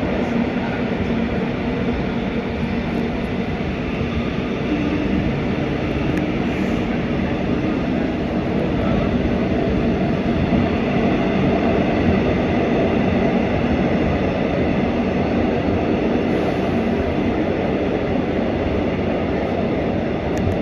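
Gwangju Metro subway train running between stations, heard from inside the car: a steady rumble of wheels on rail and running gear.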